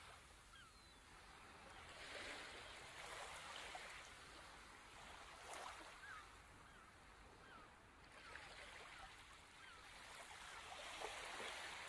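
Faint ocean surf, the wash of waves swelling and easing every few seconds, with short faint bird calls over it.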